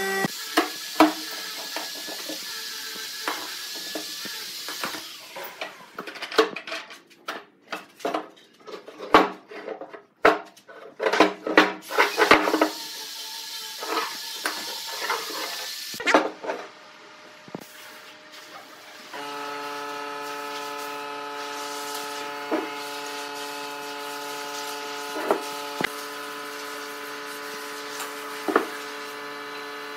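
Steel pipe clamps clanking and knocking as they are loosened and pulled off a glued-up block of pine beams, with a quick run of sharp metal clanks in the middle. After that, a steady hum with a few light taps.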